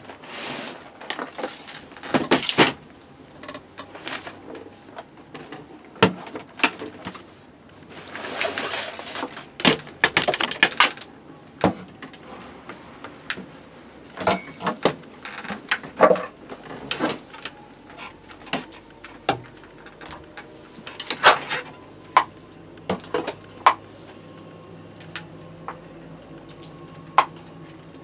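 Irregular clicks, knocks and rattles of a plastic rotary tool accessory case and its bits being handled on a wooden board, with a few short rustles. A faint steady low hum comes in about two-thirds of the way through.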